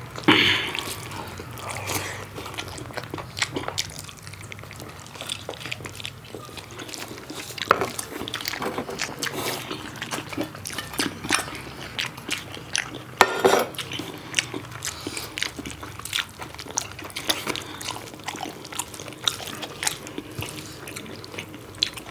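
Close eating sounds of pork curry and rice: wet chewing and lip smacking with many small clicks, and two louder smacks, one just after the start and one about 13 seconds in.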